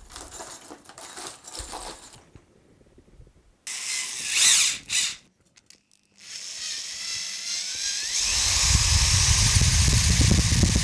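Small metal accessory bits rattling in a box, a few short loud noises, then a handheld rotary tool spins up about six seconds in with a rising whine and grinds steadily with a sanding drum into a bicycle frame's rear dropout, deepening the slot so the hub motor's axle can seat fully.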